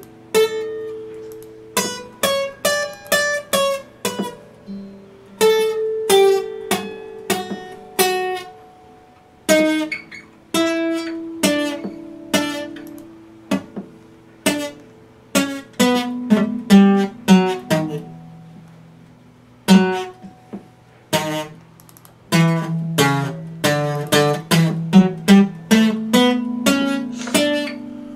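Epiphone steel-string acoustic guitar played solo: plucked melodic notes and chords ringing out, with a few short pauses between phrases.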